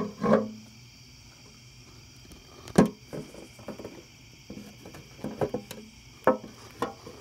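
Scattered knocks, taps and rustles from handling a container and its lid while trying to trap a spider, the sharpest knock about three seconds in and a cluster of smaller ones later. A steady, high chorus of night insects runs underneath.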